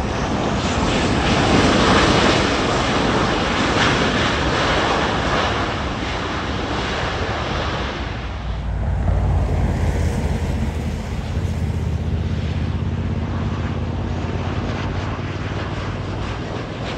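Boeing 737 airliners' jet engines running loudly on the runway, with some wind on the microphone. The roar is strongest for the first half, then drops to a lower, steadier rumble about eight seconds in.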